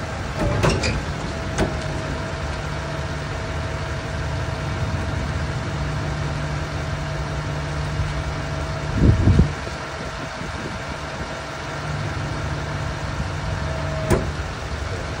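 Duramax diesel engine idling with the hydraulics running while an outrigger leg extends against the ground, giving a steady whine over the engine's low drone. A heavy thump comes about nine seconds in, and a sharp clunk near the end, when the whine stops.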